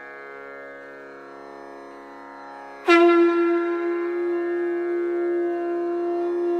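Background music: a soft steady drone, then about three seconds in a loud blown wind-instrument note starts sharply and is held at one steady pitch.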